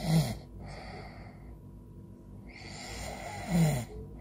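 A person snoring in deep sleep: two snoring breaths about three and a half seconds apart, each a long noisy breath that ends in a short, loud snore dropping in pitch.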